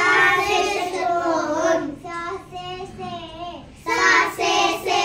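Young children reciting Hindi alphabet words in a sing-song chant. There is a loud phrase at the start and another near the end, with a softer voice between.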